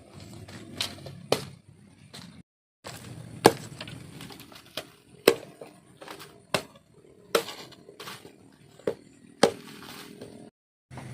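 A series of sharp single strikes, one every second or so, over a low steady background.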